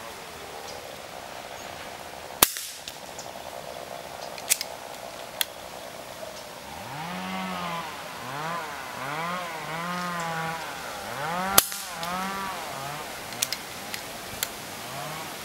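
Two shots from an FX Royale 400 PCP air rifle, each a sharp crack, about nine seconds apart. A few lighter clicks of the rifle being handled follow each shot. Behind them a pitched sound rises and falls over and over for several seconds.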